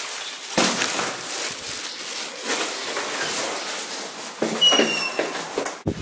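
Footsteps of a person walking in trainers, with the rustle and handling noise of a handheld camera carried along. A brief high squeak comes near the end.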